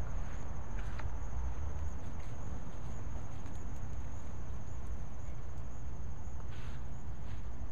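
Crickets chirring in a steady, evenly pulsing high trill over a low steady rumble, with a few faint rustles as the dog moves through the garden plants.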